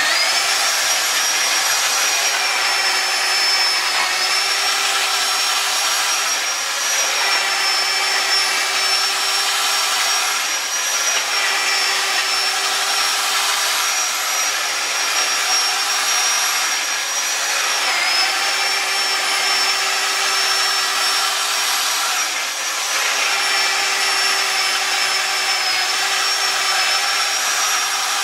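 Electric drum-type drain snake running steadily, its motor a constant whine as the spinning cable is hand-fed down a clogged kitchen sink drain; the pitch dips briefly a few times.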